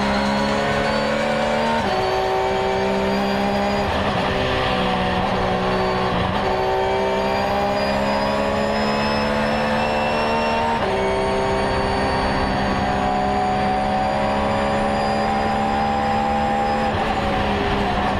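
Car engine and road noise heard from inside the cabin while driving. The engine note rises slowly and drops suddenly several times, as at gear changes.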